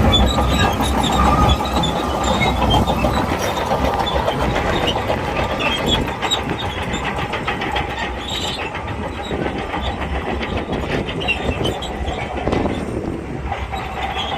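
Crawler bulldozer working: its diesel engine running steadily under load with the rattle and clank of its steel tracks, many small clicks over the engine. A little louder in the first second and a half.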